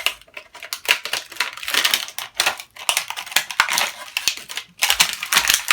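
Scissors cutting and working at stiff plastic toy packaging: a run of irregular clicks, snips and crackling of the plastic.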